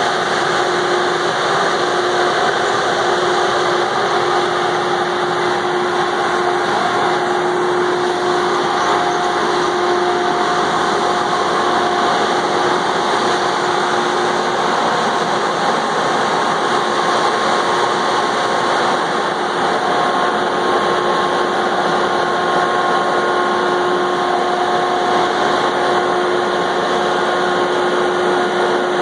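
Valmet 603S feller buncher running steadily as the machine drives and turns, with its engine noise even throughout and a few steady whining tones on top.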